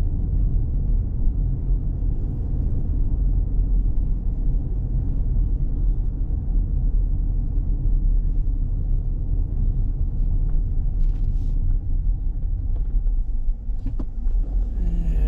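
Car driving slowly, a steady low rumble of engine and road noise, with one faint click near the end.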